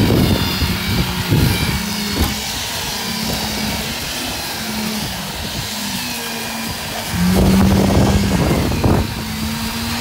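Concrete pump's engine running steadily, its pitch stepping up and getting louder about seven seconds in, with irregular low knocks and thuds as concrete is pumped through the boom's delivery hose.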